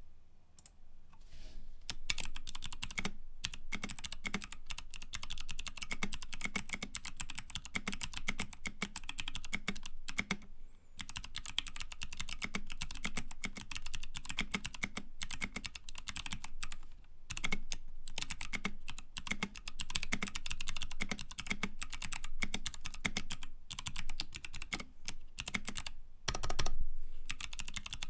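Fast typing on a mechanical keyboard fitted with lubed Kailh BOX Pink clicky switches: a rapid stream of sharp clicks with a few short pauses. One louder, deeper thump comes about 26 seconds in.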